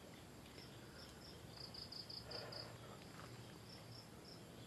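Faint high-pitched insect chirping, repeated in short runs, with a quicker run of about six chirps in the middle. There is a soft short noise about two and a half seconds in.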